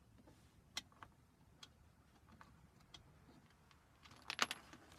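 Faint, sparse metal clicks about once a second, then a quick run of louder clicks and clinks near the end: small hardware (a washer onto the clip's bolt) being handled and fitted.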